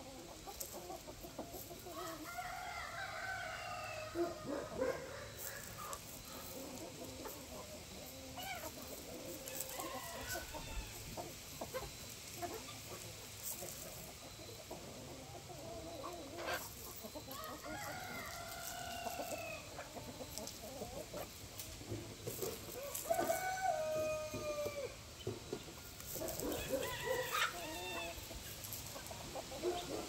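Roosters crowing four times, the loudest about three quarters of the way through, over background clucking from a flock of chickens.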